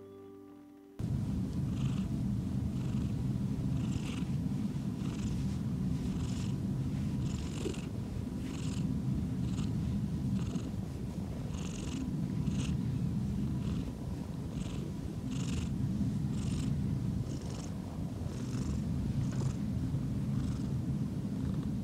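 British Shorthair cat purring steadily while being scratched: a continuous low rumble with a soft rasp about once a second.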